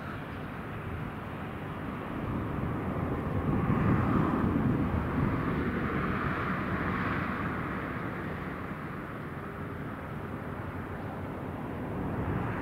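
1965 Cessna 182H Skylane's six-cylinder Continental O-470 engine and propeller droning as it climbs out after takeoff. The drone swells to its loudest about four seconds in, then slowly fades.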